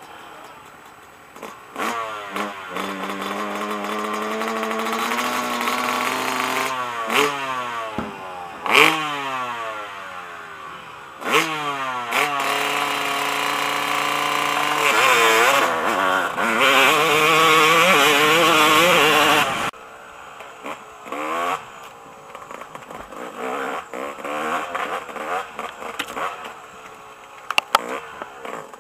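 Dirt bike engines revving hard and accelerating through the gears, the pitch climbing and then dropping at each shift. About twenty seconds in the loud engine sound cuts off abruptly to a quieter, uneven motorcycle engine with rattles and knocks.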